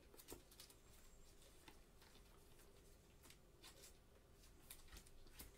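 Near silence with faint, scattered ticks and light rustles of trading cards and a plastic pack wrapper being handled in gloved hands.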